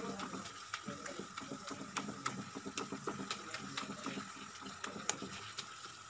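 Black spatula mashing and stirring soft-cooked tomatoes in a non-stick frying pan: irregular scrapes and frequent light clicks of the spatula against the pan, over a faint sizzle of the tomatoes frying in oil.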